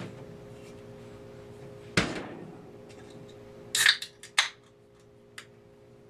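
The glass door of a Summit wine cooler swings shut with a thud about two seconds in. Just before the fourth second a beer can's pull tab cracks it open with a sharp pop and hiss, followed by a few small clicks.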